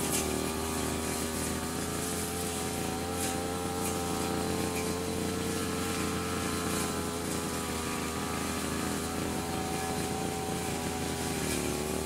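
A motor runs steadily with a constant, slightly wavering pitch.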